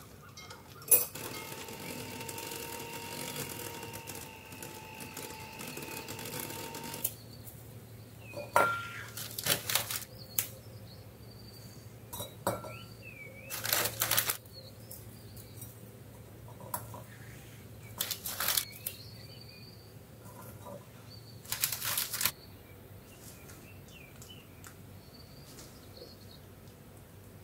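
Electric hand mixer whirring steadily as its beaters whip mascarpone cream, cutting off about seven seconds in. Then comes a series of short clatters and taps from ceramic bowls and glass cups being set down and handled.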